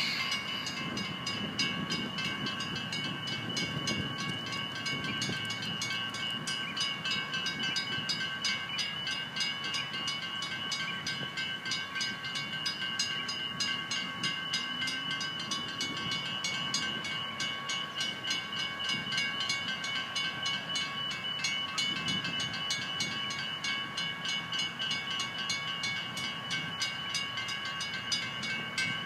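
Railway level-crossing warning bell ringing rapidly and steadily, over the low rumble of a train passing over the crossing.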